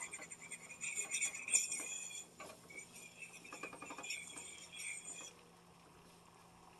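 A fork scraping and clinking against a frying pan while stirring scrambled eggs, with light metallic ringing. It stops about five seconds in.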